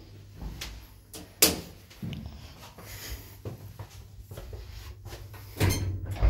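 Passenger lift doors: a sharp door click about a second and a half in, a few light knocks, then from about five and a half seconds a loud low hum as the car's sliding door starts to close behind the shut swing landing door, ending in a clunk.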